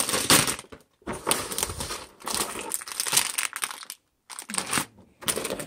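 Clear plastic bags of LEGO pieces crinkling as they are picked up and handled, in several bursts with short pauses between them.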